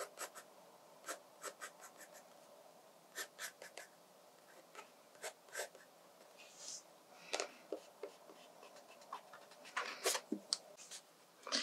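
Graphite pencil sketching on watercolour sketchbook paper: faint, short scratchy strokes in small runs with pauses between them. Near the end there is a louder brush of a hand across the page.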